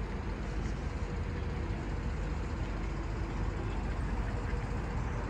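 Steady low rumble of distant town traffic, with no distinct events.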